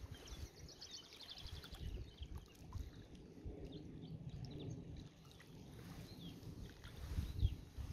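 Outdoor ambience: an uneven low rumble of wind on the microphone, with a bird giving a quick high trill in the first second or so and a few scattered chirps after.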